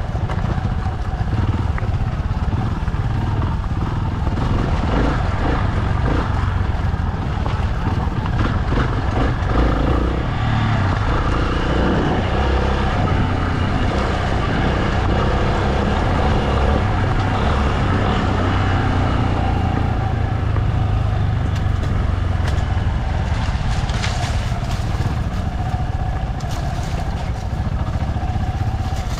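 Motorcycle engine running steadily as the bike is ridden along an unpaved forest road, with a few short, sharp noises near the end.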